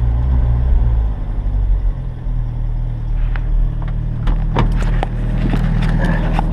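GAZelle van engine idling just after a start, its note shifting and dropping about one to two seconds in, then holding steady, with a few light clicks later. The driver takes the uneven running for the LPG tank having run out while the engine won't switch over to petrol.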